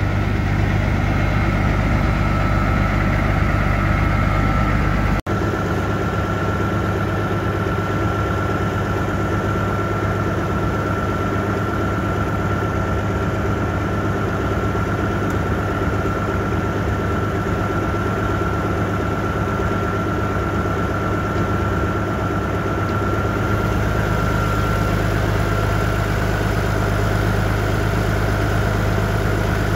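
Caterpillar 3406B inline-six diesel idling cold, just after a cold start when it hasn't been run in a while, with a steady high whine over the idle.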